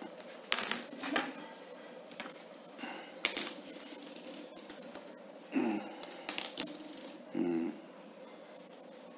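Metal fidget spinners being set down on a hard tile floor one after another, making a series of sharp clinks and clacks with a short metallic ring. A duller clack comes near the end.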